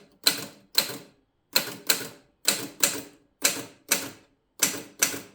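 1950 Mercedes Model 6 manual typewriter being typed on with its shift lock set for capitals: about ten sharp, separate keystrokes, each typebar snapping against the platen, roughly two a second and often in close pairs.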